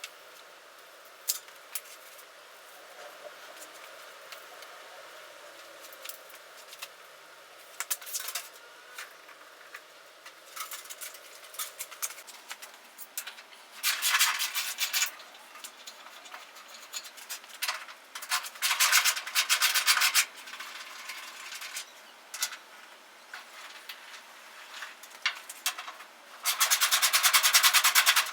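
Hands working a wiring harness, with intermittent rubbing, scraping and small clicks. Three longer, louder rasps come about halfway through, about two-thirds through and near the end; the last has a fast, even rattle.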